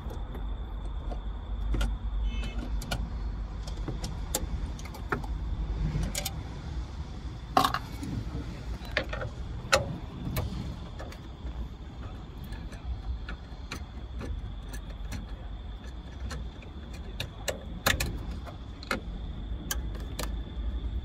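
Scattered sharp clicks and taps of hand tools and screws against the metal bracket and plastic dash trim of a car's radio mount, as the head unit's fixing screws are taken out. Under them a steady low hum and a faint steady high whine.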